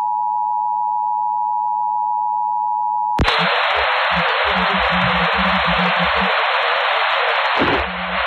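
Emergency Alert System attention signal, the two-tone alert (about 853 and 960 Hz) sounding steadily over AM radio. About three seconds in it cuts off abruptly and gives way to a loud, steady hiss of radio static.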